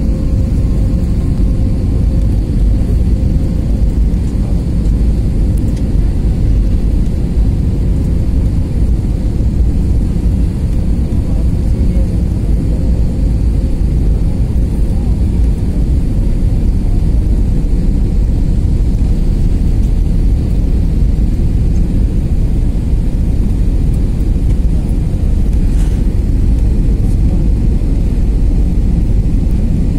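Steady low rumble of jet engines and airflow heard inside an airliner's cabin as it descends on approach to land, with a faint steady whine that fades out about halfway through.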